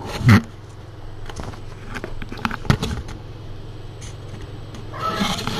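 A loud thump about a third of a second in, a few sharp clicks near the middle and a rustling stretch near the end, over a low steady hum.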